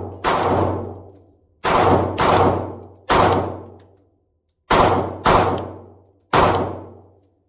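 Taurus G2C 9mm pistol firing seven shots at an uneven pace, some singly and some in quick pairs about half a second apart. Each report rings out and dies away over about a second.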